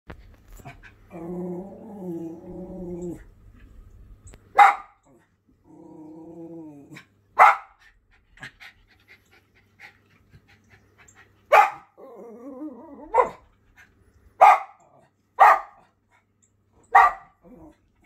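Schipperke barking at birds on a television screen: seven sharp single barks spaced a second or more apart, with three long low growls between them.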